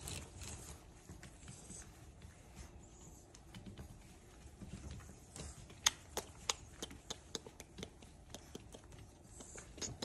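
Seven-week-old boxer puppies scuffling and scrambling on a floor mat as they mouth at a hand, with a run of light, sharp clicks and ticks through the second half.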